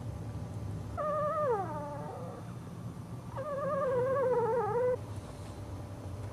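Newborn puppy whining: two high, wavering cries, the first sliding down in pitch, the second held for about a second and a half.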